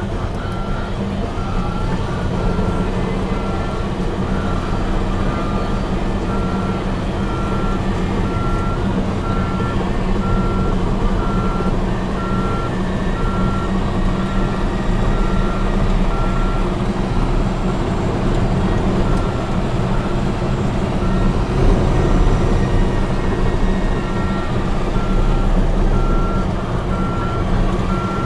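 Caterpillar D8T bulldozer's diesel engine running steadily under load, with its backup alarm beeping at a regular pace; the beeping stops for a few seconds past the middle, then starts again.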